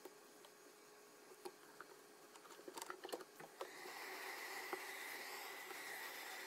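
Light clicks and taps of handling, then, a little over halfway through, a hot air rework gun starts blowing: a steady hiss of air with a thin high whine from its fan.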